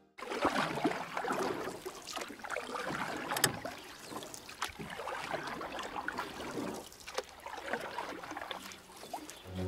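Water splashing and sloshing, with irregular splashes rising and falling in strength.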